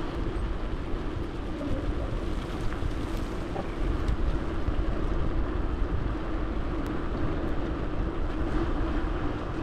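Gravel bike rolling along a gravel track: steady tyre noise with a low rumble and a faint hum, with wind and bike vibration on the camera microphone.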